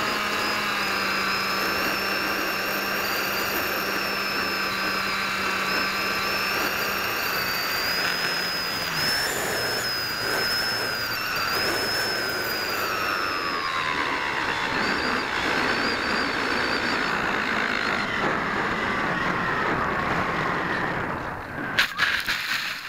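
Electric motor and propeller of an AXN foam FPV plane, heard through the onboard camera, running with a steady whine whose pitch steps and glides down as the throttle comes back for landing. A few sharp knocks about a second before the end as the plane touches down in the grass.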